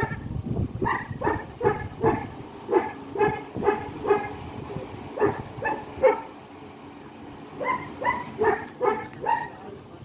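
A dog barking over and over, in runs of three to five barks with short pauses between.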